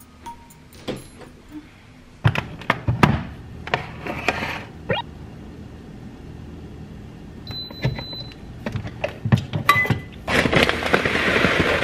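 Knocks and clatter as a pink electric rice cooker is handled and plugged in, then a single electronic beep from the cooker about seven and a half seconds in. More knocks as its inner pot is lifted out, then a steady rush of tap water near the end.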